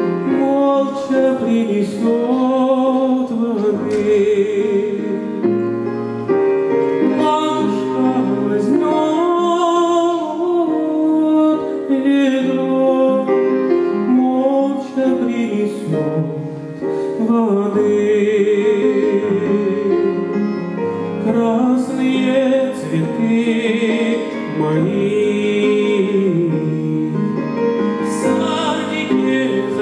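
Male voice singing a slow Russian song with vibrato through a microphone, accompanied by a grand piano.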